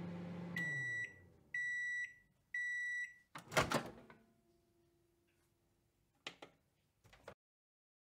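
Microwave oven finishing its cycle: the running hum winds down, then three beeps signal that cooking is done. A loud clunk follows, then a faint tone and a couple of small clicks as the door is opened.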